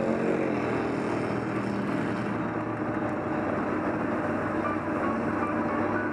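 Sherp ATV's diesel engine running steadily under way through mud, heard from on board; its note dips slightly at the start, then holds.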